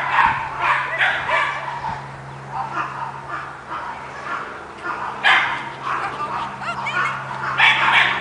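A dog barking in runs of quick, sharp barks, with a quieter stretch in the middle, over a steady low hum.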